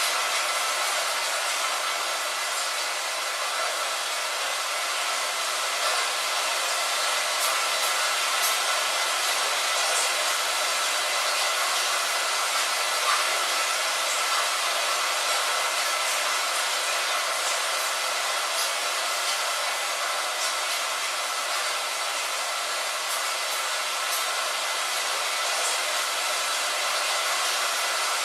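Steady hiss of falling rain, even throughout, with scattered faint ticks of single drops.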